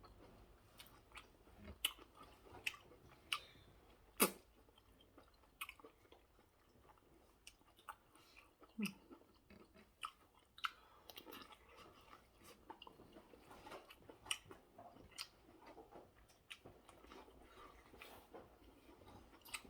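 A person eating close to the microphone: irregular small clicks of biting and chewing, with one sharper bite about four seconds in.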